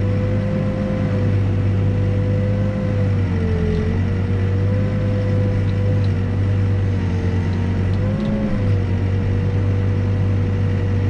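Backhoe's diesel engine running steadily while digging a footing trench, with a higher whine over it that dips and rises slightly in pitch a few times.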